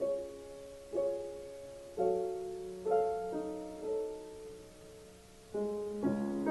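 Soft, slow solo piano as film score: single notes and chords struck about once a second, each fading away, with a short lull before a new chord near the end.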